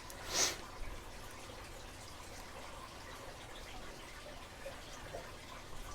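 Faint, sparse clicks and ticks of a lock pick and tension wrench working inside a padlock, with a short breathy hiss near the start.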